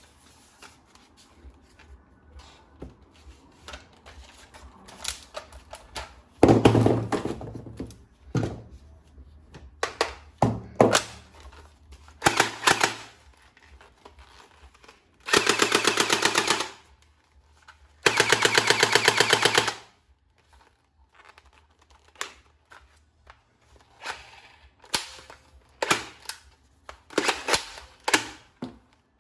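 Automatic toy M416 gun firing two bursts of about two seconds each, a fast even mechanical rattle, with separate clicks and clacks of the toy being handled before and after.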